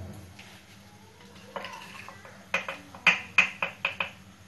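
Small kitchen utensils clicking against dishes as a spice-and-flour mix is being made: a run of sharp clicks, most of them in the second half.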